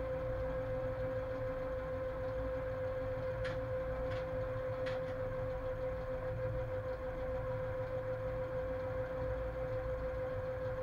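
Cab noise of a ČD Cargo class 130 electric locomotive under way with a heavy freight train: a low rumble from the running gear under a steady hum, with three light clicks about three and a half to five seconds in.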